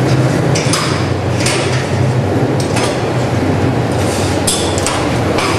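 Döner kebab production-line machinery running with a steady low hum, with several short hissing bursts at irregular moments.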